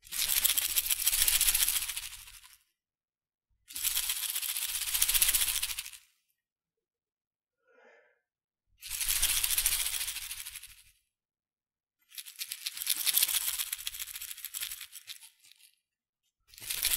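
Salt and pepper shakers shaken hard, the grains rattling inside. There are five rounds of shaking, each two to three seconds long, with short silent pauses between them.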